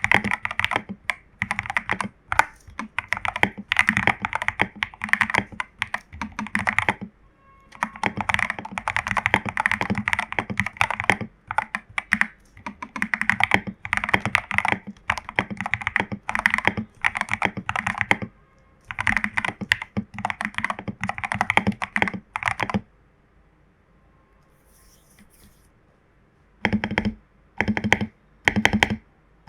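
Typing on a foam- and tape-modded Royal Kludge RK84 mechanical keyboard with lubed Jelly Strawberry v2 switches and XDA keycaps: fast runs of keystrokes with short breaks. Near the end, after a pause of a few seconds, come single, slower strokes at about two or three a second.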